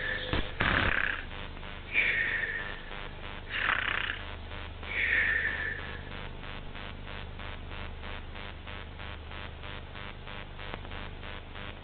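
Cartoon snoring: noisy snores alternating with falling whistles, one about every two seconds, stopping about six seconds in. A faint, evenly pulsing hiss follows.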